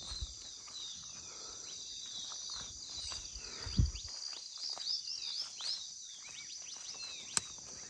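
Steady high-pitched insect chorus, with many short falling chirps over it. A dull low thump comes about four seconds in and a sharp click near the end.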